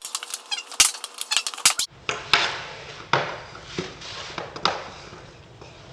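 Ice hockey shooting practice: a Bauer Vapor X60 stick cracking pucks, with the sharp clack of pucks striking the net frame and boards, several shots about a second apart.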